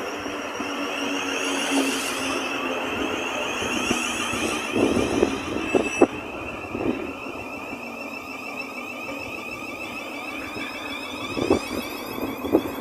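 Thameslink Class 700 electric multiple unit moving past along the platform, with steady running noise and a whine from its traction equipment. A few knocks about five to six seconds in and again near the end as the wheels pass over the track.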